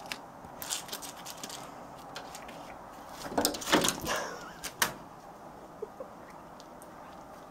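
Kittens' claws scratching and rattling a window screen: scattered light clicks, with a louder scrabbling burst about three and a half seconds in and a couple of sharp clicks just before the five-second mark.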